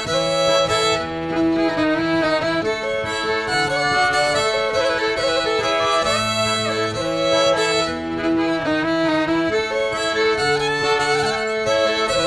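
Instrumental soundtrack music with a fiddle playing the melody over a bass line.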